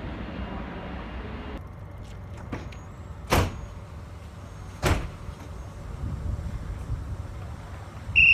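Passenger train standing at a station platform: a steady rumble stops about one and a half seconds in. Then come two loud knocks about a second and a half apart, and near the end a short, loud, high-pitched signal tone.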